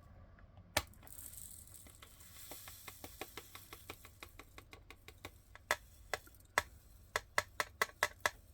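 Small plastic diamond-painting drills poured from a tray into a storage container: a soft, high rattling hiss, then a run of sharp clicks, a few a second, getting louder in the second half.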